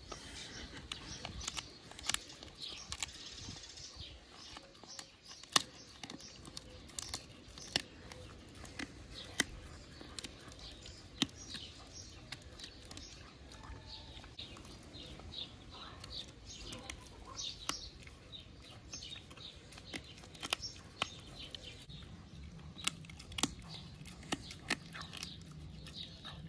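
A husky chewing and crunching a dried beef chew strip, with irregular sharp cracks as she bites through it.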